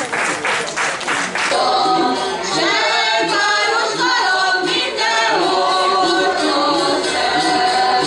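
Audience clapping in time, about three or four claps a second, then from about a second and a half in, singing begins with long held notes.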